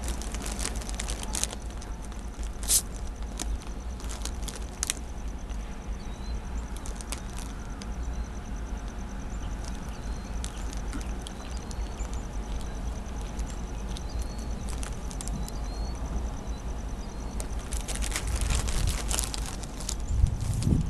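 Low, steady rumble of a distant approaching diesel freight train, with scattered crackles and faint short high chirps. The low rumble swells near the end.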